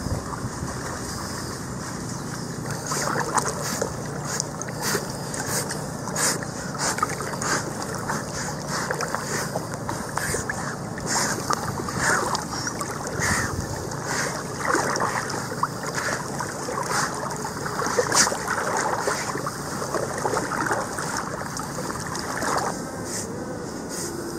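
Golden retrievers wading and swimming through a shallow river, water splashing again and again over the steady rush of the current, loudest when a dog passes close by.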